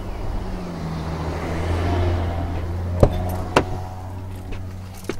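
A motor vehicle running and passing by, its engine noise swelling and then fading away. Two sharp clicks come about three seconds in.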